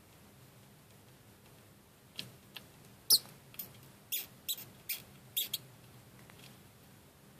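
A smooth knob-tailed gecko seizing and chewing a pinkie mouse: short, sharp, high-pitched squeaks, about eight over three seconds, starting about two seconds in.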